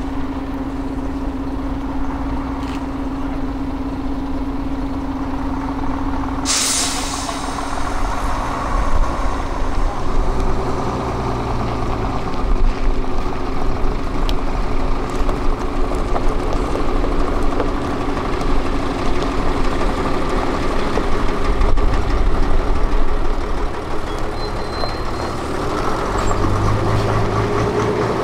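Diesel bus idling steadily, then a short sharp hiss of its air brake releasing about six seconds in. After that the engine works harder and its note rises and falls as the bus pulls away.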